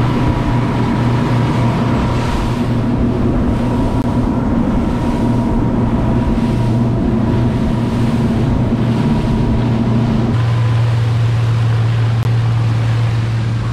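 A boat's twin outboard motors running steadily at speed, with the wake rushing behind. About ten seconds in the engine note changes, its upper tones dropping away while the low hum carries on.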